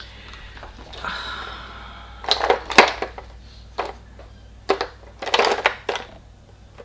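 Makeup products being rummaged through by hand: small hard cases clicking and clattering in several short bursts.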